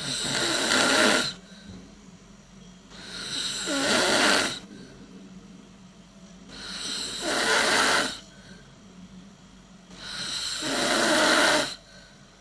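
A person snoring: four loud snores, one every three and a half seconds or so, each building over about a second and a half and then cutting off sharply, with a faint steady hum between them.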